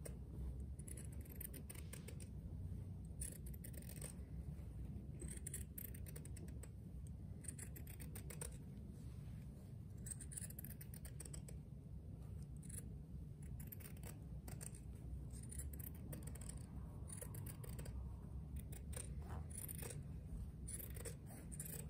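Scissors snipping through layered fabric just outside a sewn seam, a long run of quiet, irregular cuts.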